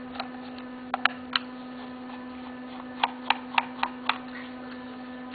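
Screwdriver clicking against the screws of an Andis T-Outliner clipper's housing as the cover screws are taken out. There are sharp ticks, a few early and then a quick run of about five, over a steady electrical hum.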